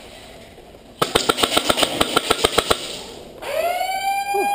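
A rapid burst of about fifteen airsoft gun shots, roughly eight a second. About a second later an electronic horn sounds, rising briefly and then holding one long steady tone.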